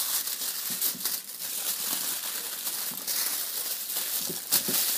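Aluminium foil crinkling and rustling as it is folded and wrapped around by hand, with a steady run of crackles and a few sharper crinkles about four and a half seconds in.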